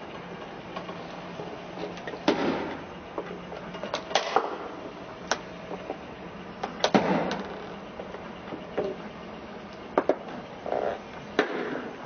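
Smartphone glass screens cracking and crunching under a car tyre: a dozen or so sharp snaps and cracks, several in quick clusters, each with a short crunch after it. A low steady hum runs beneath them through the first half.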